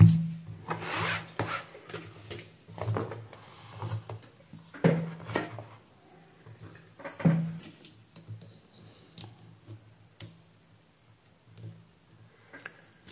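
Hands handling things on a workbench: a cloth rubbing and power-supply leads being moved, in scattered short bursts with a few light knocks.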